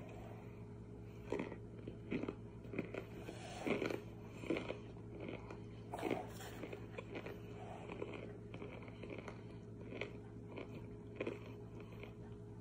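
Raw cornstarch being bitten and chewed: irregular crunchy, squeaky bites and chews, loudest in a cluster a few seconds in, then sparser.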